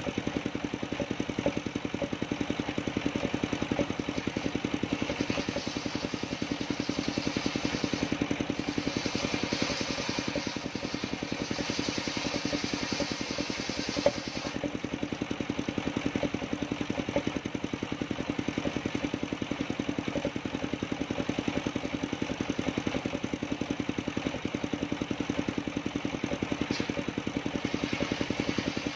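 Engine-driven circular sawmill running steadily with an even, fast-pulsing engine note. From about five to fourteen seconds in, a higher hiss rises over the engine as the big blade cuts through coconut-trunk wood, with a single sharp click near the end of that cut.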